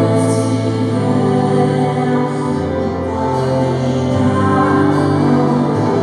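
Live worship music: a woman singing through a microphone over held keyboard chords and guitar, the bass note shifting with slow chord changes.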